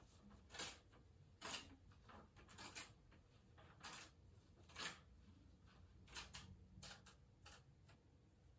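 Sheets of paper being handled: a series of short, faint paper rustles and crinkles, about eight, coming at uneven intervals.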